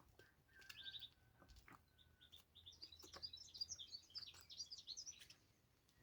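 Faint chirping of small wild birds: a short burst of high notes about a second in, then a rapid run of high twittering notes lasting about three seconds, with scattered faint clicks.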